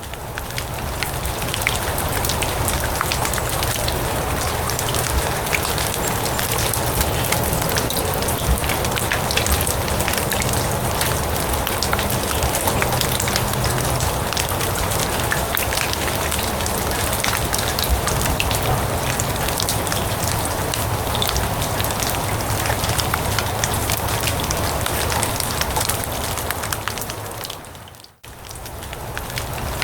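Steady rain falling on grass and leaves: a dense, even patter of many small drops. The sound fades away briefly about 28 seconds in and swells back up.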